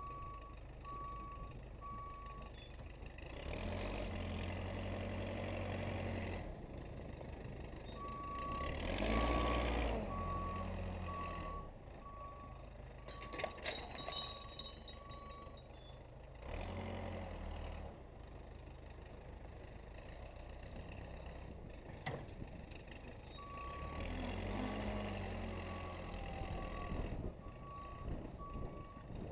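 Case 580C backhoe's engine running and revving up and down as it pushes snow, with a backup alarm beeping steadily in three stretches as it reverses. A few sharp metallic clanks come about halfway through.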